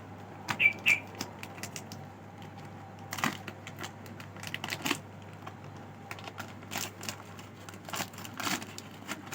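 Plastic snack packets crinkling and crackling as they are torn open and handled, in irregular sharp crackles.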